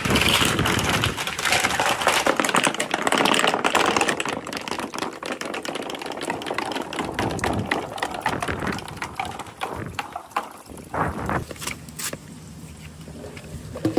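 Balls rolling and clacking down marble-run tracks and chutes, a dense run of quick clicks for about the first four seconds that then thins out, with a few sharp clacks near the end.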